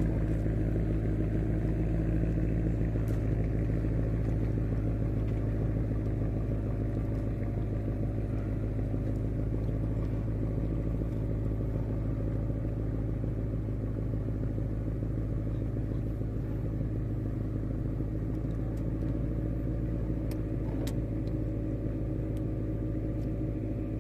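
Small boat's engine running steadily: an even, low, pitched drone that holds the same pitch throughout.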